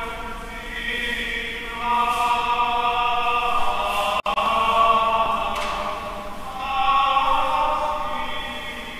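Voices singing a slow liturgical chant in long held notes during Mass. The sound cuts out for an instant about four seconds in.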